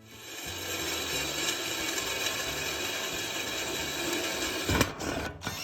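Electric power tool cutting or grinding scrap steel: a steady, rough noise with a faint motor whine that builds up over the first second, then a sharp metallic knock near the end.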